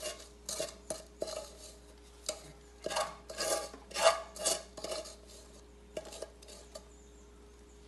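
A spoon scraping and knocking inside a metal pot, scooping thick cocada (coconut candy) out onto a board in a run of irregular scrapes. The scrapes are busiest and loudest about three to four seconds in and die away near the end.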